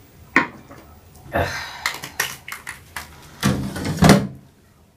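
A series of sharp clinks and knocks of a glass and bathroom items being handled, then a mirrored medicine cabinet door being pushed shut, the loudest knocks about three and a half seconds in.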